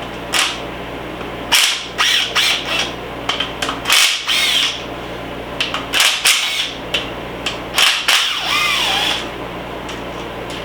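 Handheld power tool, the impact gun, run in about six short bursts a second or two apart, its motor whirring up and down as it spins out the timing-cover bolts on a K24A2 engine.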